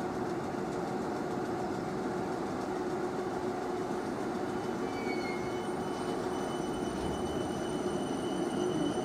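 Steady rumble and hum of a South West Trains suburban electric multiple unit at the platform, with a thin high-pitched tone coming in over the last few seconds.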